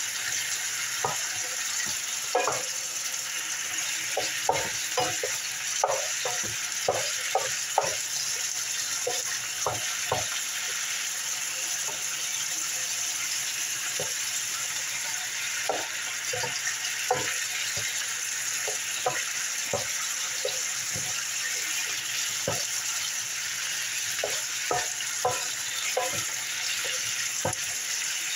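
Diced chicken breast sizzling steadily in oil in a square nonstick skillet, while a wooden spoon stirs it, scraping and knocking against the pan many times.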